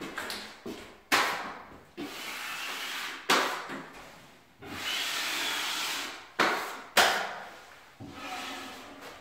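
Repeated scraping strokes of a drywall taping knife on plasterboard, spreading and smoothing joint compound. Some strokes start sharply and fade, others run steadily for a second or more.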